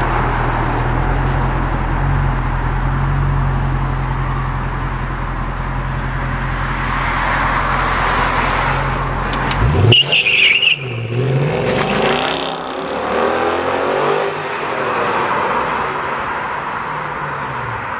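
Mercedes-AMG CL 63's V8 idling with a steady low rumble. About ten seconds in there is a sudden loud burst of revving as the car accelerates away, its engine note rising and falling for the next few seconds.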